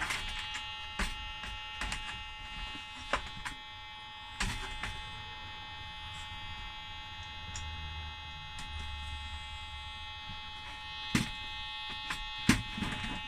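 Acorn BBC Master Compact sounding its continuous power-on beep, one steady unbroken tone: the 'continuous beep of death' fault, still there after the chips have been cleaned and reseated. Several short plastic knocks as the keyboard and main board are handled.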